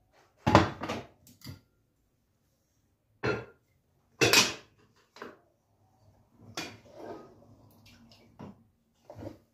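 A glass pot lid and a stone-coated cooking pot clinking and knocking as they are handled, with several separate sharp knocks, the loudest about half a second in. Near the end comes a couple of seconds of a wooden spoon scraping and stirring inside the pot.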